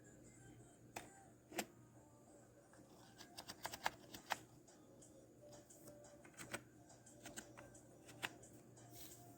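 Near silence over a low steady hum, broken by scattered faint clicks and taps, with a quick run of them about three to four and a half seconds in.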